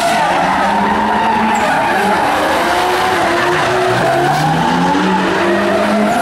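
Drift cars' engines revving hard and rising and falling in pitch, with tyres screeching as the cars slide sideways. More than one engine is heard at once.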